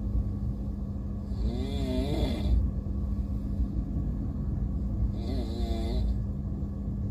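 A person snoring, two long snores about three and a half seconds apart, over the steady low rumble and hum of a moving train.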